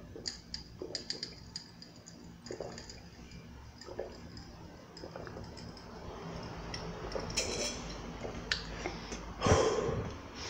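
A person drinking juice from a glass with ice in it: small clicks and clinks of ice and glass and soft swallowing sounds, with a louder burst of noise near the end as the glass is lowered.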